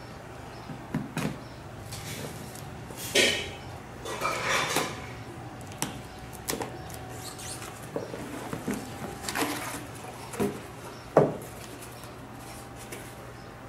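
Cardboard packaging being handled and unpacked: irregular scraping and rustling sweeps with scattered knocks and bumps on the table, the sharpest knock coming about three-quarters of the way through.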